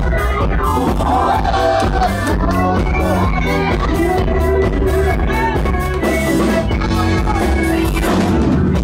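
Loud dance music with a heavy, steady bass beat and a melodic line that slides up and down in pitch.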